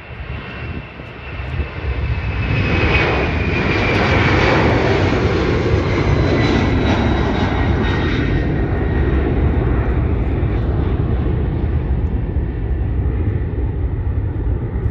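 Boeing 767-300ER's twin jet engines on departure. A loud low rumble builds about two seconds in and carries on, with a high whine that slowly falls in pitch as the jet passes.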